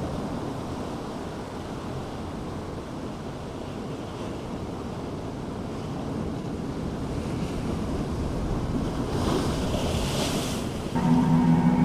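Surf washing on a beach, with wind buffeting the microphone; a brighter hiss of water swells briefly about nine to ten seconds in. Music cuts in near the end.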